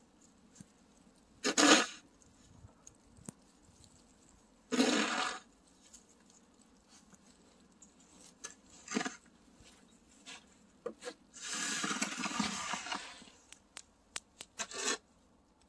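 Snow shovel scraping and pushing through heavy, slushy wet snow on pavement. There are five main scrapes a few seconds apart, one of them longer, with scattered small knocks and clicks between.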